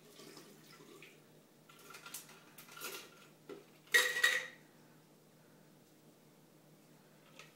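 A drink being poured from a small pitcher into a beer bong's plastic funnel, with faint trickling and splashing. A ringing clink of dishware comes about four seconds in.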